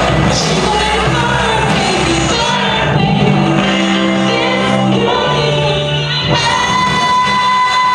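A girl singing a song solo into a microphone over an instrumental backing track, with a long held note near the end.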